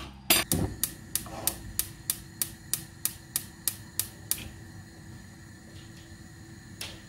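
A run of about a dozen sharp, evenly spaced clicks, about three a second, stopping about four seconds in, with one more click near the end over a faint steady hum.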